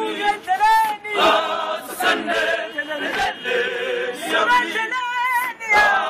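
Street group of young men singing a cappella in several-part harmony, chanting, with high wavering calls rising over the choir and a few sharp percussive hits.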